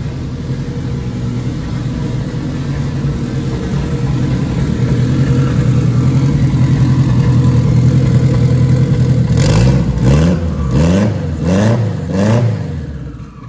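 Turbocharged Honda K24 inline-four idling steadily, freshly started after three years of storage, then revved in four quick throttle blips, each rising and falling in pitch, before settling back down.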